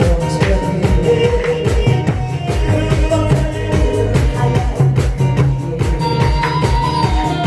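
Loud amplified music with a steady drum-kit beat and bass.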